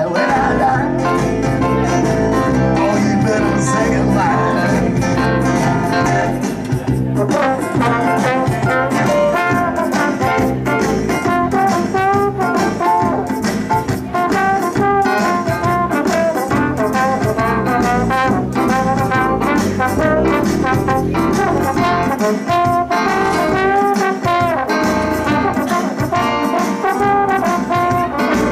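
Trombone solo in a New Orleans-style jazz tune, played live over the band's accompaniment.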